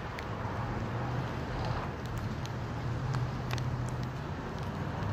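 Outdoor ambience: a steady low rumble under a light hiss, with scattered faint ticks.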